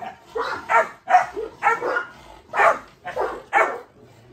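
Three-month-old Presa Canario puppies barking in a squabble, a quick run of about eight short barks that stops shortly before the end.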